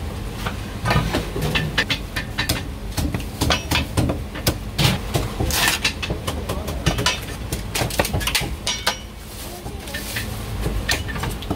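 Heavy meat cleaver chopping roast pipa duck on a thick round wooden chopping block: a quick, irregular run of sharp knocks, easing off briefly a little after halfway before picking up again. A low steady rumble runs underneath.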